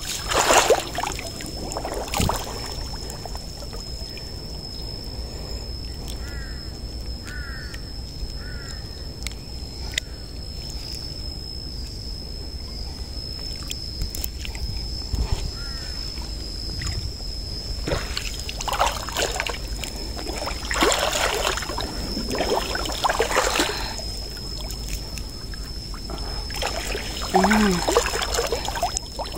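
Water splashing and dripping as a fishing gill net is pulled up out of the water by hand, in irregular bursts that are busiest in the second half. A bird chirps a few times in between.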